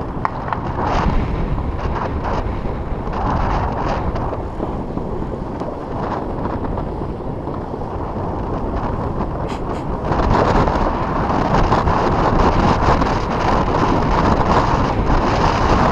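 Wind rushing over the microphone of a camera riding on a fat bike, mixed with the hiss of tyres on packed snow and a few small knocks. It gets louder about ten seconds in.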